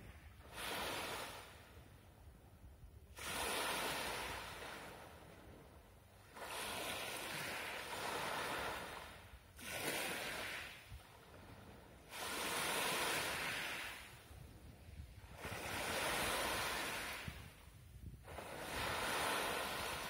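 Black Sea surf washing up on a pebble beach and drawing back. The sound swells and fades with each wave, about every two to three seconds.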